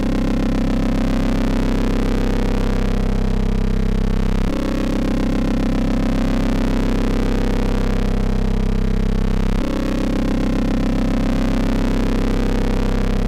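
Modular synthesizer patch of Rossum Trident oscillators, wave-spliced with a rectified sine wave, playing a steady, sustained drone. Its tone changes abruptly about four and a half seconds in and again near ten seconds.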